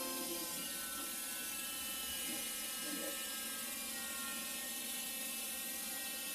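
Small battery-powered DC motor spinning a plastic propeller in a homemade mini air cooler, running with a steady whir and hiss.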